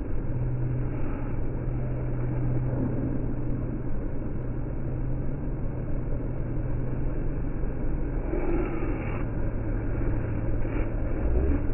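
Steady low mechanical hum over a continuous rumble, like an idling vehicle or rail machinery, with a brief slightly brighter rush about two thirds of the way in.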